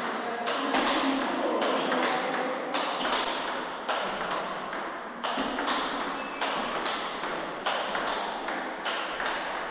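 Table tennis ball clicking off the bats and the Butterfly Octet table in a long topspin rally, about two hits a second, each hit echoing in the hall.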